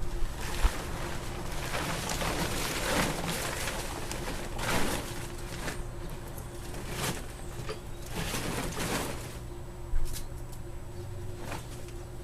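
A cover being pulled off a snowblower: irregular rustling swishes, with a sharper knock near the end.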